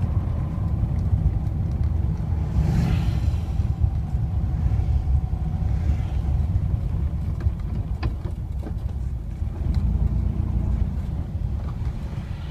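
Car engine and road noise heard from inside a moving car: a steady low rumble, with a few light knocks about eight seconds in.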